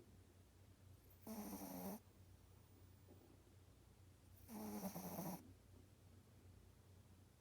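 A sleeping pet snoring: two snores about three seconds apart, each just under a second long, with fainter breaths between them.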